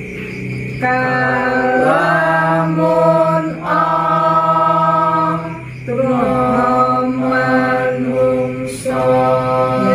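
A small group of voices singing a Javanese tembang macapat in Pangkur metre together, in long held notes that break off briefly every two or three seconds.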